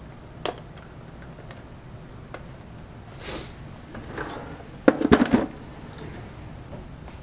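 Lab bench drawer sliding, with a short rushing sound or two, then a quick clatter of sharp knocks about five seconds in as something is put away inside.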